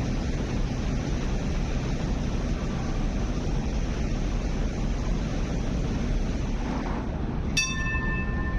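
Steady wind noise on the microphone over a low outdoor rumble. About a second before the end, a sharp click is followed by a steady ringing tone at several pitches.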